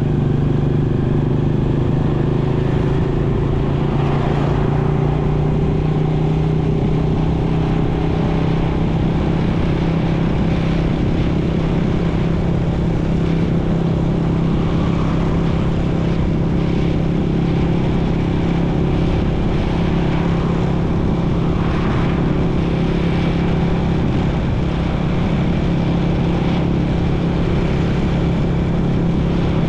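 Motorcycle engine running steadily while riding. Its pitch rises a little over the first few seconds and then holds.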